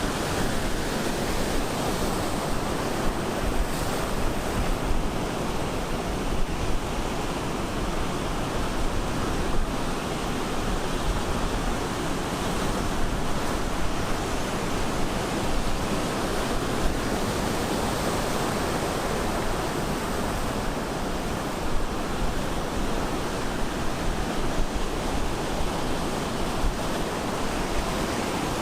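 Ocean surf breaking on the beach, a steady wash of noise with small swells in level, with some wind on the microphone.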